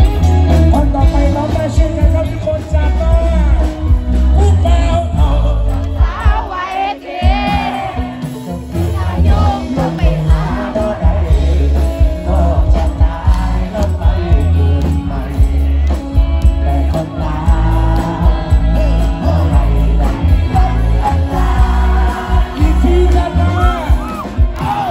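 Live band music with a male lead singer: electric guitars and drums over a heavy, steady bass beat, with the bass dropping out briefly around seven seconds in.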